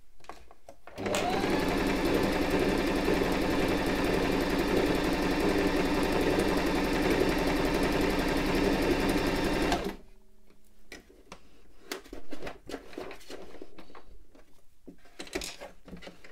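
Silvercrest sewing machine running at a steady speed as it stitches a wide zigzag through fabric. It starts about a second in and stops suddenly after about nine seconds, followed by a few quiet clicks and rustles as the fabric is handled.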